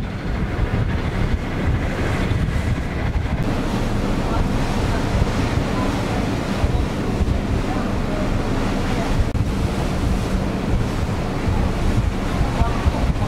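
Wind buffeting the microphone on the deck of a car ferry under way, over the steady rush of sea water along the hull and a low hum from the ship.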